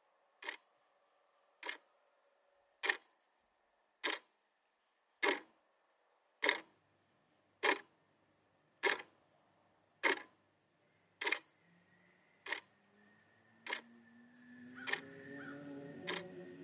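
A slow, even series of single sharp knocks, about one every 1.2 seconds, fourteen in all. About two-thirds of the way through, a low hum and room noise rise beneath them.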